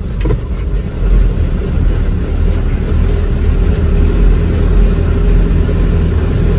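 A loaded truck's diesel engine pulling hard up a steep hill road in a low gear, heard from inside the cab as a steady low drone that gets louder about a second in.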